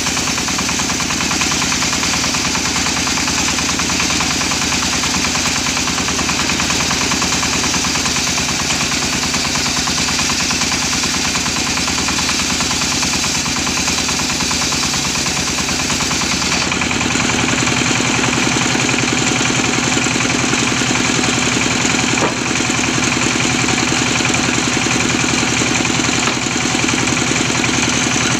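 Homemade belt-driven circular saw ripping a teak beam lengthwise: the blade's steady cutting noise over the engine that drives it, running evenly. The tone shifts about two-thirds of the way through.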